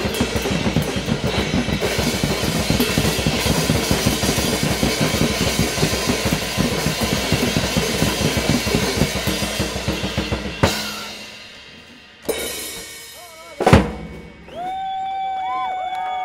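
Fast, dense drumming on drums and cymbals that fades out about ten seconds in. Then come a few separate sharp strikes, the loudest near the end, and after it a steady held tone with small pitch wiggles.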